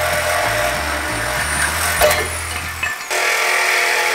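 Angle grinder with a cutoff wheel cutting through the steel suspension-arm mounts on a truck frame: a steady whine over a hiss. It breaks off briefly about three seconds in, then starts again.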